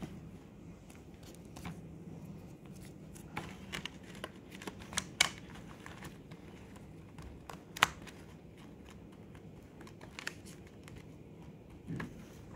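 Fingers tapping and handling plastic sticker packets in a compartmented plastic tray: scattered light clicks and crinkles, the sharpest two about five and eight seconds in.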